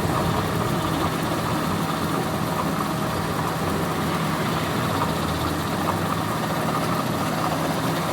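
An engine running steadily at idle, an even, unchanging hum.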